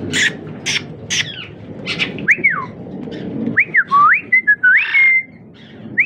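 A few short, shrill slaty-headed parakeet calls, then a person whistling sliding, rising-and-falling notes in several short phrases to coax a parakeet down.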